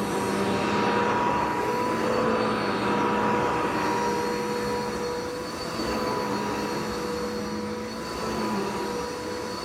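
Dirt Devil vacuum cleaner running, a steady motor whine over the rush of air, dipping slightly in loudness a couple of times.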